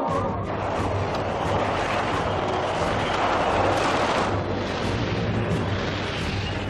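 Sound effect of heavy armoured war vehicles on the move: a dense rumbling, grinding noise over a low steady hum, loudest around the middle.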